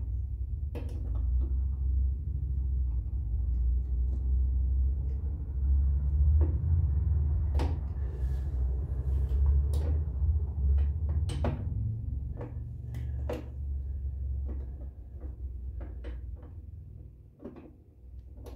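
Scattered sharp clicks and knocks of hand tools and brake parts being handled during work on the front brake, over a steady low rumble.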